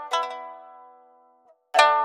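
Background music on a plucked string instrument: a note rings and slowly fades, a brief pause, then a new chord is struck near the end.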